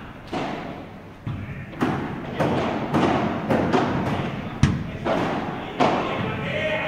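Padel rally: rackets striking the ball and the ball bouncing, a quick run of sharp hits about two a second, echoing in a large indoor hall.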